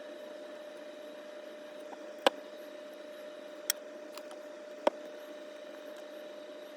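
Three sharp clicks of small parts or tools being handled at a workbench, spaced a second or so apart, over a steady background hum with one constant tone.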